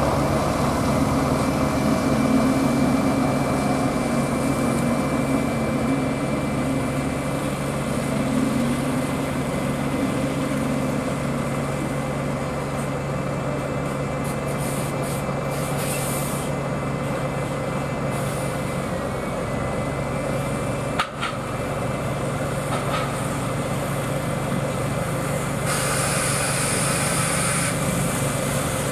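Diesel bus engines running at idle, a steady hum, with buses moving in the bus station. There is one sharp click about two-thirds of the way through and a hiss of about two seconds near the end.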